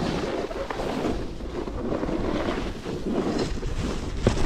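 Steady rush of wind over the microphone mixed with the hiss of skis sliding over groomed snow at speed. There is one small click near the end.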